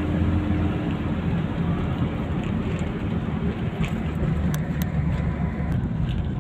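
Car engine running steadily under driving, with tyre and road rumble, heard from inside the cabin.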